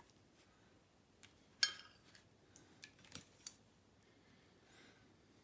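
Metal spoon clinking against a ceramic soup bowl several times while eating. The loudest clink, about one and a half seconds in, has a short ring, followed by a few lighter taps.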